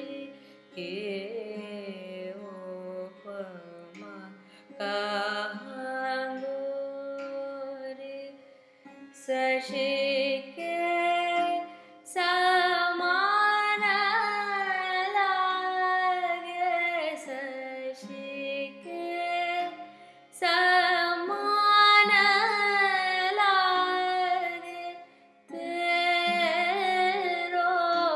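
A woman singing a wordless alaap in Raga Rageshree over a steady drone, holding notes and gliding between them in long phrases with short pauses.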